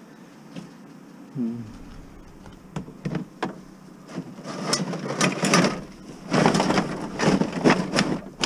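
Plastic milk jugs, bags and scrap being shoved and packed by hand into a crowded van load: crinkling plastic and knocks, sparse at first and thickening into a continuous clattering rustle over the second half.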